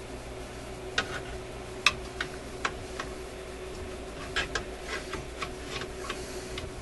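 Irregular small metal clicks and ticks of a hand tool slipping and catching on a stubborn screw holding a radio's metal shielding can, about a dozen in all, the sharpest about two seconds in.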